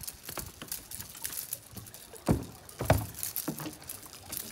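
Water splashing and lapping against a small boat's hull, with scattered small knocks and two louder splashes a little over two seconds and about three seconds in.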